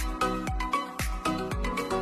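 Background music with a steady beat, about two beats a second, under bright pitched notes.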